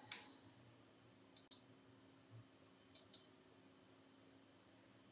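Near silence broken by three faint double clicks about a second and a half apart, like a computer mouse button pressed and released, over a faint steady hum.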